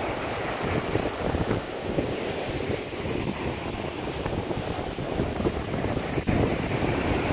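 Sea surf breaking on a beach, with wind buffeting the microphone.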